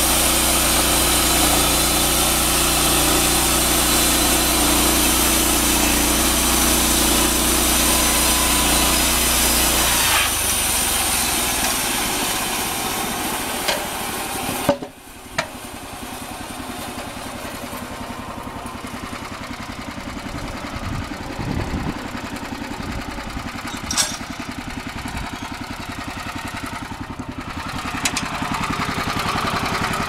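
SMG Champion sawmill's engine running steadily. Its note changes about ten seconds in, and about halfway through it gives way abruptly to a quieter, fast-pulsing machine sound with a few sharp knocks.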